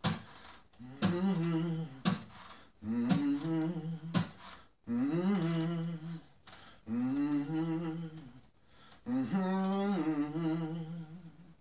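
A man humming a wordless melody over an acoustic guitar, in a string of short phrases with gaps between them, several opening with a sharp guitar strum; it fades out near the end.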